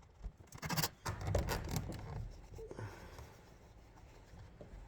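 Packaging being handled and pulled apart: scraping and rustling with many sharp clicks, busiest in the first two seconds and quieter after that.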